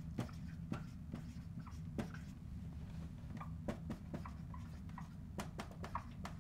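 Dry-erase marker writing on a whiteboard: faint scattered taps and short squeaky strokes over a steady low hum.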